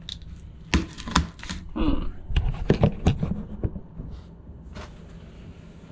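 A run of light clicks and knocks, as of small hard objects being handled, over about three seconds, then a quieter stretch.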